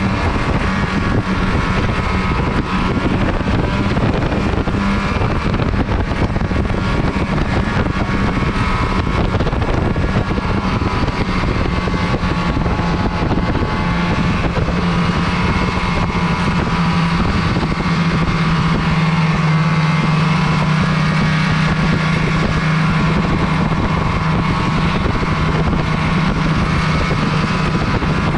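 Snowmobile engine running steadily under way, its note dropping slightly about halfway through, over a constant rush of track and wind noise.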